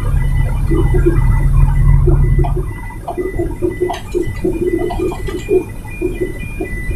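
Heavy low rumble of a container truck's diesel engine, which drops away a little under three seconds in. Over it run a high beep repeating evenly about three times a second and irregular short lower blips.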